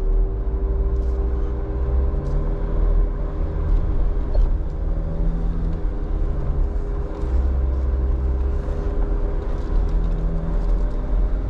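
Jeep engine pulling under load as it climbs a sand hill on an off-road trail, a low steady drone with the note shifting a little now and then, and a steady whine over it.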